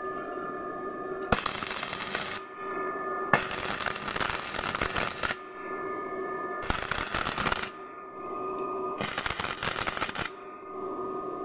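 A metal-finishing tool working a steel weld seam: a steady machine hum, with four bursts of harsh, crackling hiss, each one to two seconds long, as the tool is applied to the metal.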